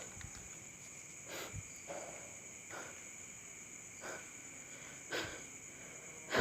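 Steady high chirring of crickets, with a few soft scuffs about once a second.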